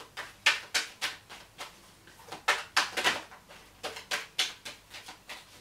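Tarot deck being shuffled by hand, overhand: a run of sharp card slaps, coming in quick groups of two or three.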